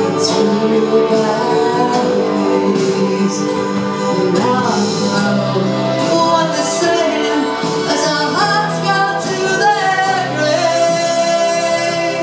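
A woman singing a pop cover song into a handheld microphone over instrumental backing, amplified through a PA.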